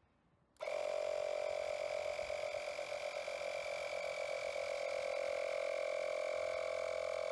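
A Makita MP180DZ 18 V cordless inflator switches on about half a second in and runs steadily with an even whine, pumping up a bicycle tyre as the pressure on its display climbs.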